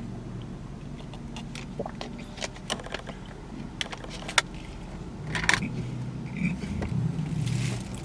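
Eating sounds: chewing and handling food, with scattered sharp clicks and rustles over a low steady hum, growing busier in the second half.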